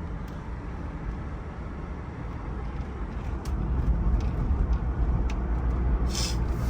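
Ford V8 engine running as the vehicle drives, a low rumble that gets louder about halfway through. A short hiss comes near the end.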